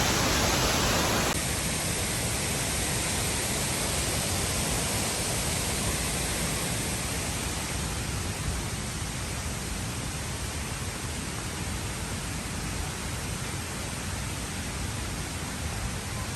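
Waterfall rushing as a steady, even roar of falling water. It drops abruptly about a second in, then slowly grows fainter.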